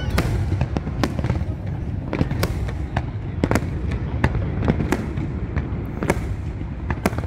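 Aerial fireworks shells bursting overhead: an uneven run of sharp bangs and crackles, about three a second, over a steady low rumble.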